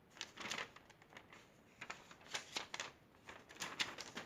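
Paper rustling as a printed instruction manual is handled and leafed through, in several short, irregular bursts.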